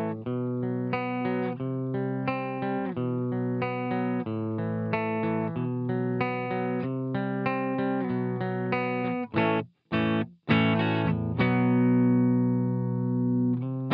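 Electric guitar played through an optical compressor pedal set to high compression with the clean dry signal blended in. A run of single picked notes comes first, then a few short choppy stabs about ten seconds in, then a chord left to ring out evenly.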